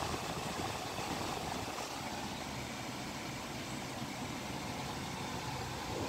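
Audi car engine running steadily at idle, heard from inside the cabin with the air conditioning on: an even hum that neither rises nor falls.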